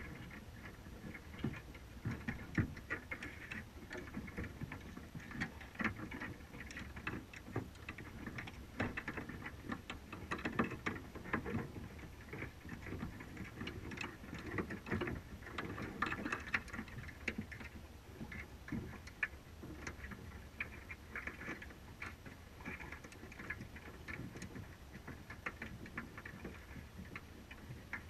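Underwater sound picked up through a GoPro's waterproof housing on a crab trap: dense, irregular clicks and ticks over a low rumble.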